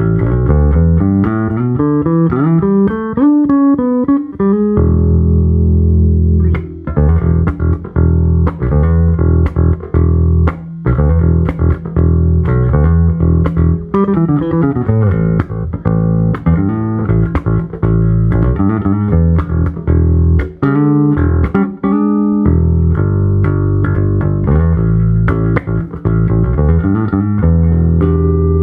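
Provision relic-finished electric bass played solo as a demo. It opens with a rising run of notes, lets a low note ring, then plays riffs and lines.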